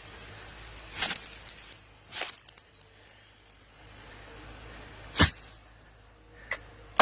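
Tree limbs cracking and crashing down, about five sudden crashes, the sharpest and deepest about five seconds in.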